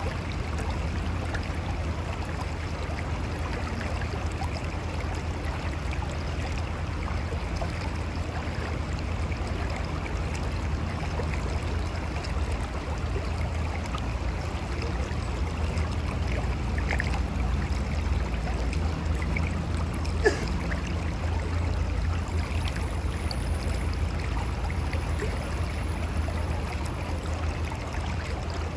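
Mountain river flowing and gurgling over rocks: a steady rush of water, with one brief knock about two-thirds of the way through.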